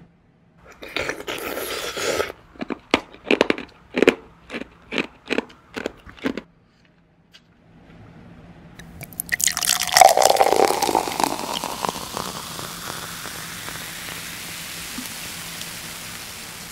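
A short scraping rustle, then ice cubes clinking as they are dropped one by one into a glass, about a dozen clicks. After a pause, liquid is poured over the ice, rushing loudest about ten seconds in, and then goes on as a steady hiss of bubbles.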